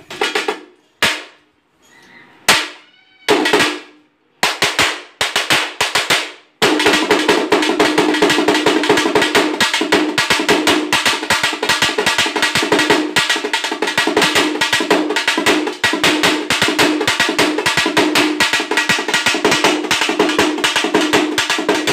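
Background music of drumming: a few scattered drum strokes with short silences between them, then from about six and a half seconds in, fast continuous drumming.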